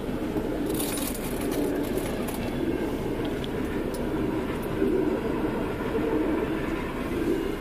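Aeroexpress electric train running past over a level crossing: a steady rumble of wheels on rail, with a cluster of sharp clicks about a second in, heard from inside a car.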